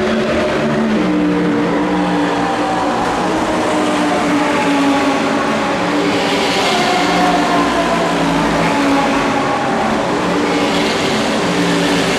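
A pack of GT3 race cars (Audi R8, BMW Z4, McLaren MP4-12C, Ferrari 458) passing one after another at racing speed, several engine notes overlapping and sliding in pitch as each car goes by.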